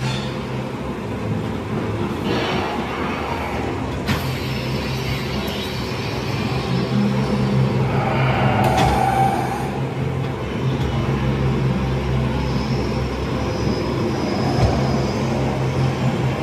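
C&S ghost-train car running along its track through a dark ride, over a steady low hum. A few short louder sounds come along the way, including a sharp click about four seconds in.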